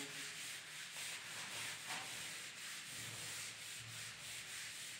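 Whiteboard eraser rubbing marker writing off a whiteboard in faint, repeated wiping strokes.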